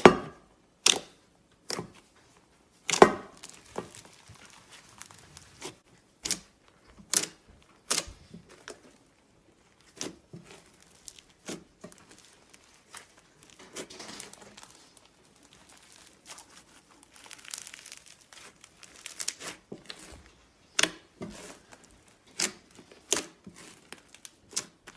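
Slime being squeezed and poked by hand, giving irregular sharp pops and crackles with softer crinkly squishing in between.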